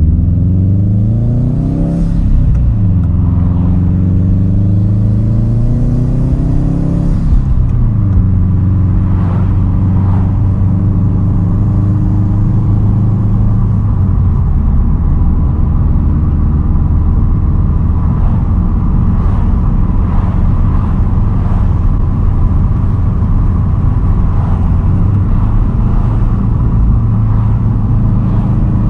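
2010 Subaru WRX STI's turbocharged 2.5-litre flat-four through a Tomei titanium single straight-pipe exhaust, accelerating through two gears with upshifts about two and seven seconds in, then holding a steady cruising drone.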